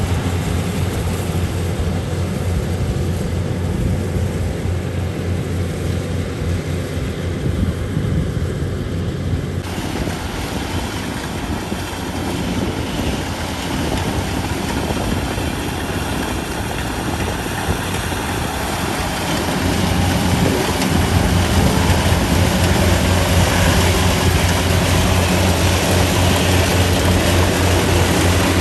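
Kubota DC-70 combine harvester's three-cylinder turbocharged diesel running with a steady deep drone. A brighter mechanical hiss joins about a third of the way in, and the drone grows louder about two-thirds of the way through.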